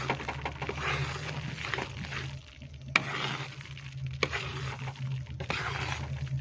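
Besan (gram flour) roasting in a kadhai while a spatula stirs it continuously: a scraping, sizzling rustle that swells and fades with each stroke, with a few sharp clicks of the spatula against the pan.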